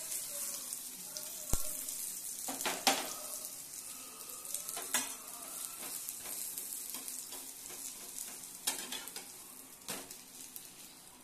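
Onion omelette frying in oil in a non-stick pan, just turned over, its sizzle slowly dying away. A few sharp knocks and clicks come through it as the pan is handled.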